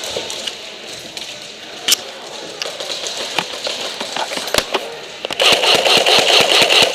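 Airsoft guns firing: scattered single shots and clicks, then about five and a half seconds in a long rapid full-auto burst from an electric airsoft rifle, a fast rattling string of shots over the whir of its gearbox.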